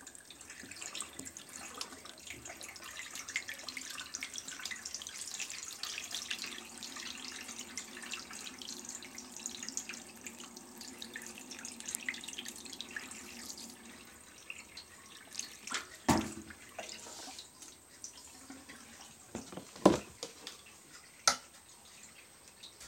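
Wash water draining out through a portable washing machine's drain tube in a steady splashing trickle that dies down after about fourteen seconds. A few sharp knocks follow near the end, the loudest two close together.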